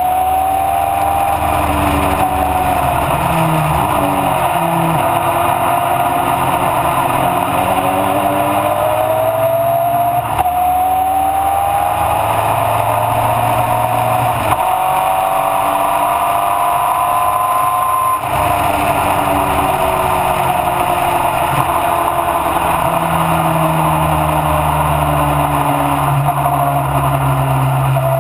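Mallock Mk8B racing car's engine running hard on track, heard from on board. The engine note climbs steadily in pitch through the middle, drops abruptly about 18 seconds in, then falls away gradually.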